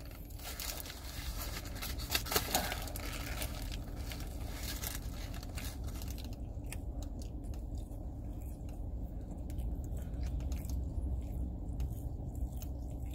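Foil-paper burger wrapper crinkling as a bite is taken from a hamburger, then chewing with sparse faint mouth clicks from about six seconds in. A steady low rumble runs underneath.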